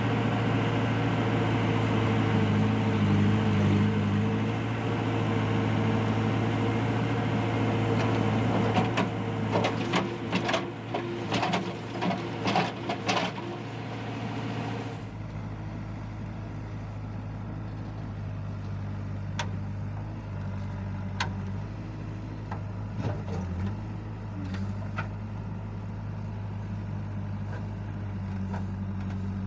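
Old Kirloskar-engined backhoe loader's diesel engine running steadily under work, with a run of sharp metallic clanks in the first half. About halfway through the sound drops abruptly to a quieter, duller engine note with a few scattered ticks.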